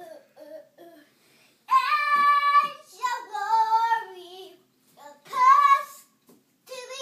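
A child singing in a high voice: three drawn-out, wavering phrases with short pauses between them, after a few faint short notes.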